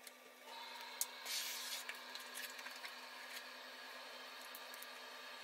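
Rubbing and rustling of a waterproofing membrane sheet being pressed and smoothed down by hand, with scattered small clicks, the loudest about a second in. A steady low hum runs underneath.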